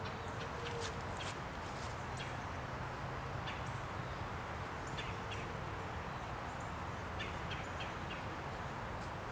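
Outdoor ambience: a steady background hum with scattered short, high bird chirps.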